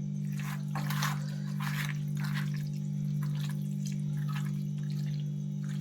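Half a lemon squeezed by hand over chicken, juice squirting and dripping in several short irregular spurts. A steady electrical hum runs underneath.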